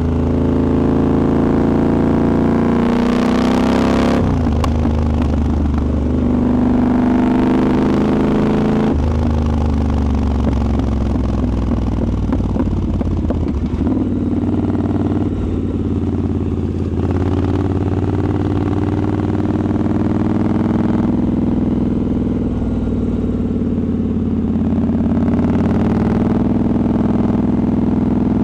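Triumph Scrambler 1200's parallel-twin engine heard onboard while riding: it revs up, drops in pitch at a gear change about four seconds in, shifts again about nine seconds in, and runs on at varying speed.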